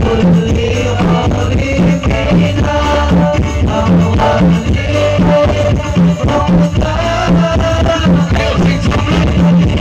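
Music with a steady repeating drum beat, about two beats a second, under a held melody line.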